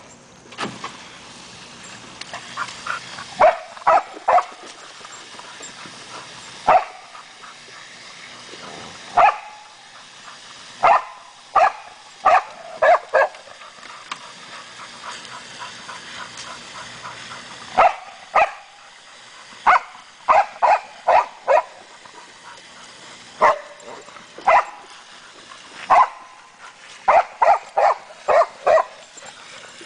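A dog barking repeatedly in short runs of two to five quick barks, with pauses of a few seconds between runs.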